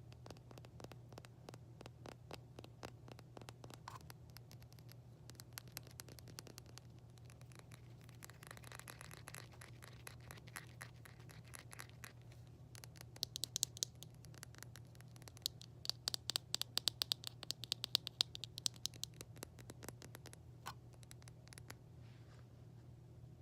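ASMR tapping and scratching on hard objects: a fast, dense patter of light clicks and scrapes, with two spells of louder, sharper, rapid tapping a little past the middle. A low steady hum runs underneath.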